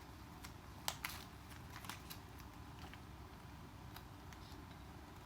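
A few light clicks and taps of the repair stand's small metal parts being handled and set down, over a faint steady low hum.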